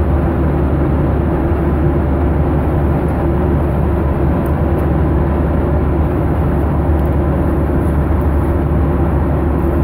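Steady jet engine and airflow noise inside the cabin of a Ryanair Boeing 737 in cruise, heaviest in the low end and unchanging.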